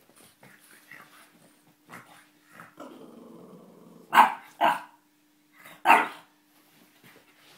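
French Bulldog growling low for about a second, then barking three times: two quick barks and a third about a second later. Playful barking during play.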